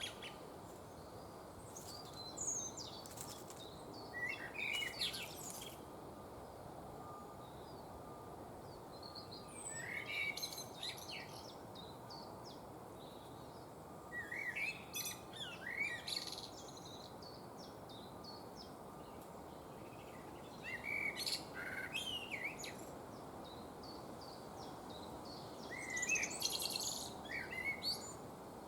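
A wild songbird singing short chirping phrases, each a second or two long, repeated every four to six seconds over a steady low background hiss.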